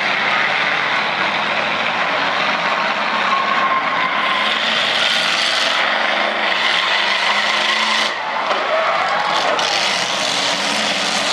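Demolition derby cars' engines running and revving, with tires squealing and skidding as the cars spin and ram each other.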